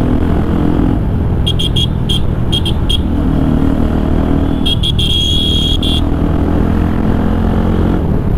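Motorcycle engine running at road speed through an exhaust whose stock silencer bend pipe has been cut off. A series of short high-pitched beeps sounds twice over it, the second group ending in a longer beep.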